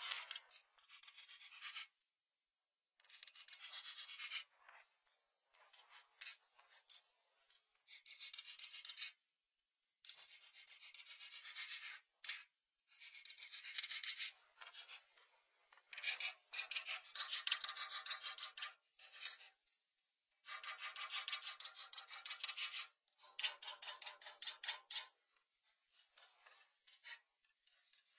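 Crayon scribbling on paper: quick back-and-forth scratchy rubbing strokes in spells of one to three seconds, with short pauses between.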